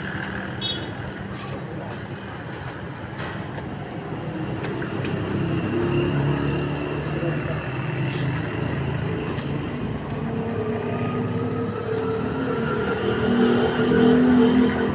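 Steady motor-like rumble and hum, with a few light clicks and knocks; it swells briefly near the end.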